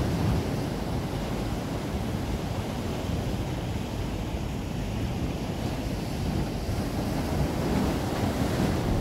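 Sea surf: waves breaking and washing in, with wind rumbling on the microphone.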